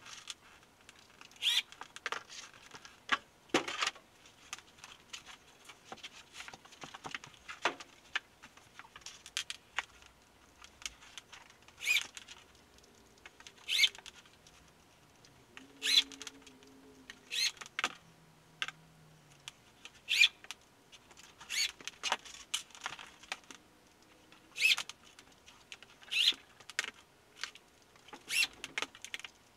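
Short, sharp clicks and taps of screws and a small plastic screw box being handled on a plywood floor panel, about one every one to two seconds; the drill is not running.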